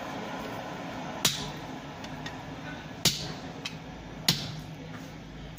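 Hammer blows on a hand-held chisel set on a red-hot iron bar on the anvil: three sharp metallic strikes a second or two apart, over a steady background hum.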